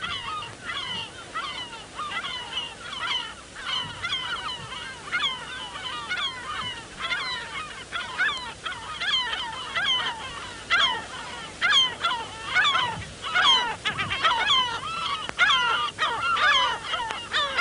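A flock of gulls calling without pause, many short overlapping calls several a second. The calls grow denser and louder in the second half.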